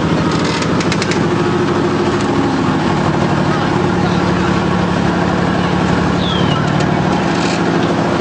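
Armoured personnel carrier's engine running steadily at close range, with people's voices around it. A few light clicks come about a second in.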